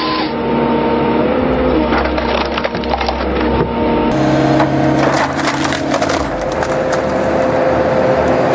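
Wood cracking and splintering as a heavy machine breaks through timber, with many sharp cracks over the steady running of its engine.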